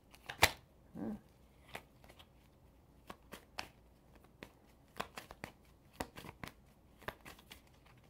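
Tarot cards being shuffled by hand: a run of irregular sharp card slaps and clicks, the loudest about half a second in.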